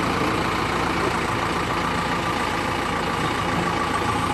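Heavy diesel engine running steadily at an even pace, with no change in speed.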